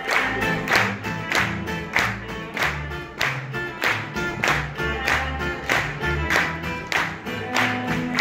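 Acoustic folk-pop band playing live with no vocals: two strummed acoustic guitars, violin and double bass. The strokes keep a steady quick beat of about two a second.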